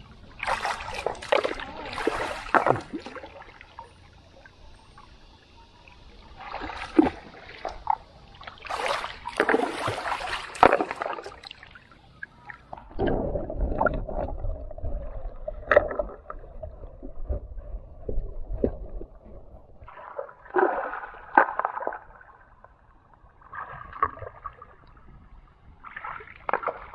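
Water splashing and sloshing as hands drag and work a mosquito net through a shallow river, in irregular spells. For several seconds in the middle the sound turns to a low, muffled rumble as the microphone goes under the water.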